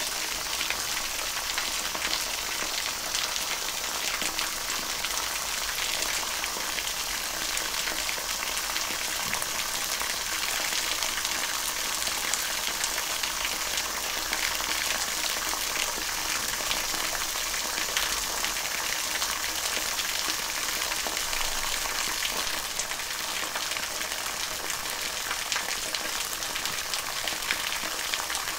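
A thin stream of water falling from a rock face and splashing steadily onto stone slabs, making an even spattering hiss.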